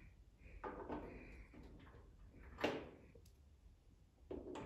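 Control knobs being pushed onto the valve stems of a Blackstone griddle's control panel, with hands handling the metal panel: a few faint clicks and knocks, the loudest about two and a half seconds in.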